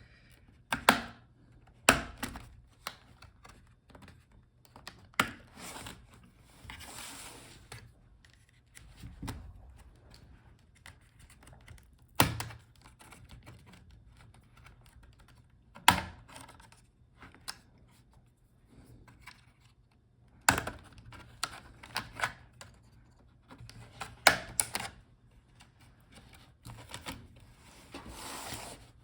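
Bottom cover of a Dell Latitude 5310 laptop being pried off its palm rest with a plastic pry tool: irregular sharp clicks and snaps as the plastic clips release, with a few short stretches of plastic scraping on plastic.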